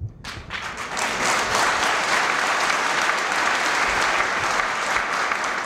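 Audience applauding: many hands clapping that swell up within the first second, hold steady, and ease off slightly near the end.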